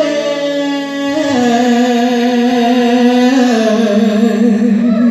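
A woman singing live into a microphone, holding a long final note: a first note for about a second, then a step down to a lower note sustained with vibrato to near the end.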